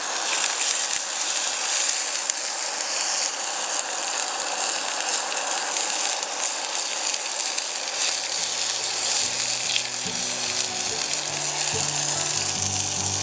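Raw meat sizzling in a frying pan on campfire embers: a steady hiss. Soft music with low held notes comes in about eight seconds in.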